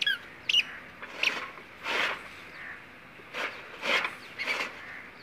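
Hand-cranked toka chaff-cutter chopping green sorghum stalks, several separate cutting strokes through the middle and second half. Small birds chirp sharply at the start, louder than the cuts.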